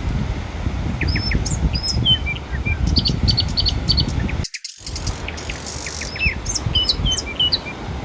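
Small birds chirping in many short, quick calls over a steady low rush of wind and surf. The whole sound drops out for a moment about halfway through.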